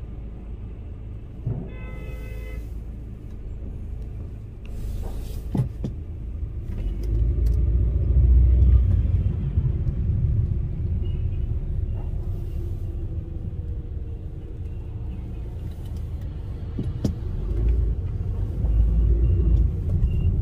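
Low, steady rumble of road traffic, swelling as vehicles pass about a third of the way in and again near the end.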